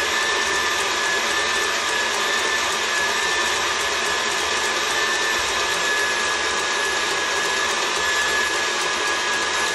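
KitchenAid stand mixer running steadily, its wire whisk beating cream-and-ricotta frosting in a stainless steel bowl toward soft peaks. A constant motor hum with a thin high whine held evenly throughout.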